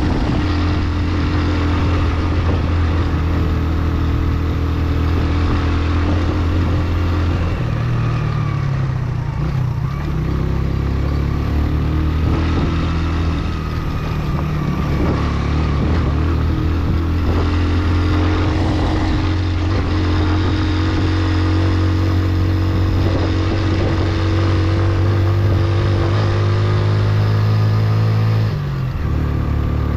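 Motorcycle engine running under load, its note stepping up about a quarter of the way in, wavering for several seconds, then holding steady and dropping sharply near the end.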